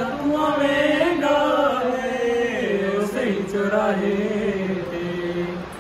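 A man singing a Punjabi song unaccompanied, holding long drawn-out notes that waver and slide in pitch. The voice eases off just before the end.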